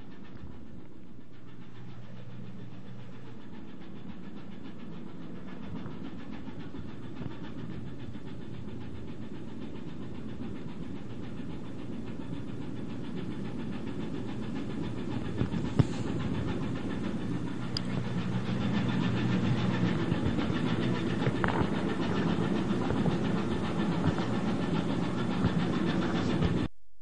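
Ship's engine running steadily, a low hum under a broad rushing noise. It grows louder over the last third and cuts off suddenly just before the end.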